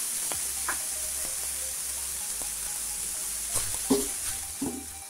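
Chopped fenugreek leaves sizzling in hot oil in a nonstick pan while being stirred with a silicone spatula, with scattered light scrapes and taps of the spatula. The sizzle fades near the end.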